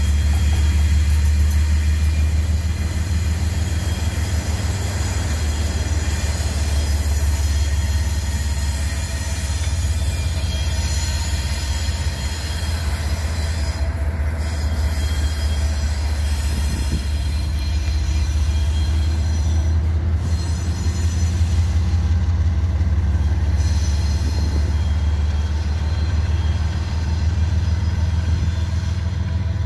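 Freight train reversing slowly through a curve: the wheels squeal against the rails in several high steady tones over a steady low rumble.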